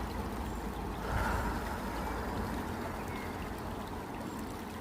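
Steady rushing of flowing water with a deep rumble underneath, swelling a little about a second in.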